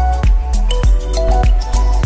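Background music with a steady beat, a heavy bass and a simple melody line.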